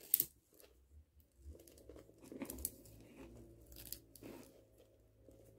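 Plastic pony beads clicking and rattling against each other as a beaded cuff is handled while its elastic string is tied off, with a sharper click just after the start. A faint steady hum of distant yard-work machinery sits underneath from about a second and a half in.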